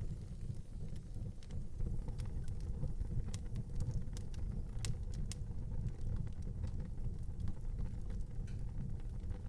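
Fire burning in an outdoor fireplace: a steady low rumble of flames with scattered crackles and sharp pops, the loudest pop about five seconds in.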